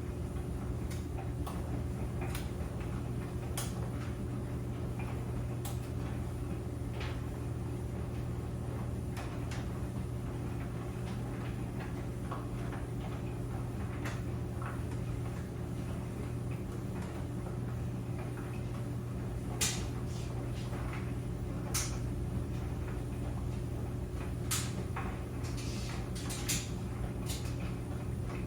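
Clothes dryer running with a steady hum, with irregular light clicks and knocks throughout and a few sharper knocks in the second half.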